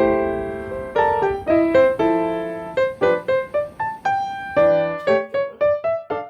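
Background solo piano music: a gentle melody of single notes and chords, each note struck and fading away, picking up into quicker repeated notes near the end.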